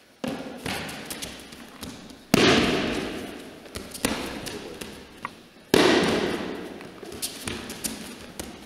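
Bodies falling onto judo tatami mats in breakfalls as a partner is thrown again and again: three heavy thuds, the second and third the loudest, each ringing on in a large hall. Lighter slaps and foot taps on the mats come in between.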